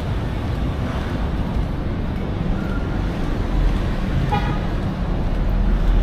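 Steady low rumble of city road traffic, with one short car horn toot about four seconds in.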